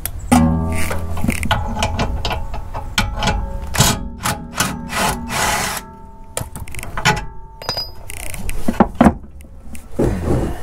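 Cordless power tool with a socket whirring in bursts as it backs out the rear shock absorber's mounting bolt, with sharp metal clicks and clanks between runs. Near the end, a few knocks as the shock is worked free.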